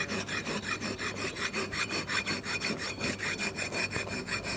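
Half-round file rasping back and forth across the bevel of a 4-inch steel weld neck flange in quick, even strokes, cutting the metal down to a 1/8-inch root face.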